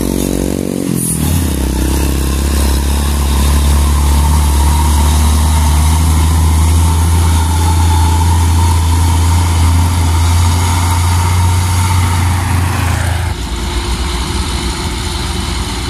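Isuzu Giga dump truck's diesel engine passing close and pulling away: a deep steady rumble with a fainter steady whine above it. The rumble stops abruptly about two seconds before the end, leaving lighter engine noise.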